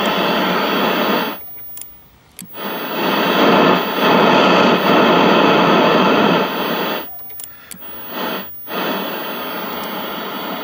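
Static hiss from a 1968 RCA Victor tube TV's speaker cutting out abruptly three times, with clicks at the dropouts: once for over a second about a second in, and twice briefly near the end. The intermittent sound is the sign of a flaky switch that is judged bad even after cleaning.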